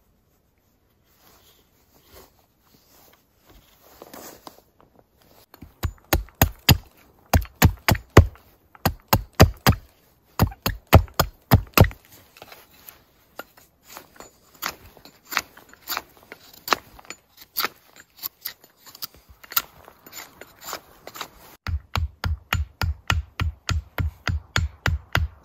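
Hatchet striking a wooden stake in quick bursts of sharp blows, chopping it to a point. Near the end it settles into a steady run of about four strikes a second as the stake is pounded into the ground.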